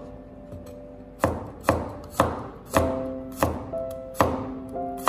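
Chinese cleaver slicing garlic cloves on a wooden cutting board: about seven sharp knife strokes on the board, roughly two a second, starting a little over a second in.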